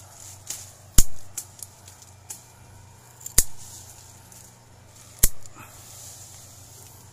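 Hand pruning shears (secateurs) snapping shut three times, about two seconds apart, cutting through durian branches; the first snip is the loudest.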